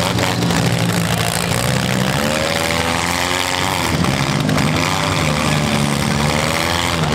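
Engines of several small demolition-derby cars running and revving together, their pitch rising and falling as the cars drive and push each other.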